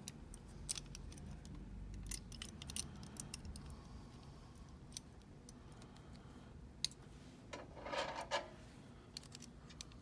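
Small metal hardware handled by hand: light, scattered clicks and taps as a nylon locking nut is threaded onto a shoulder bolt through a steel bracket, with a short scraping rattle about eight seconds in.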